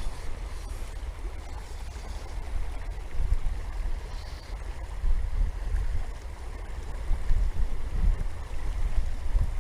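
Wind buffeting the microphone in uneven gusts of low rumble, over the steady rush of river water.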